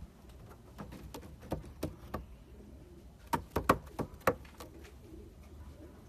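Racing pigeons cooing in a loft, with sharp clicks or taps over it: a few scattered ones in the first two seconds and a quick run of about five near the middle, louder than the cooing.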